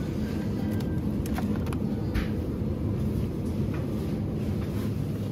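A steady low rumble with a faint hum, broken by a few light clicks in the first half.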